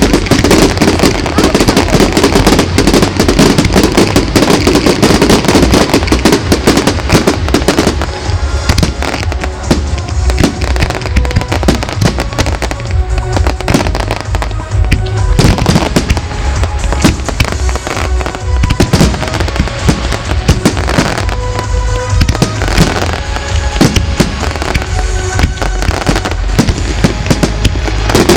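A fireworks display going off continuously: dense, rapid bangs and crackling, heaviest in the first eight seconds and slightly thinner after, with music playing along.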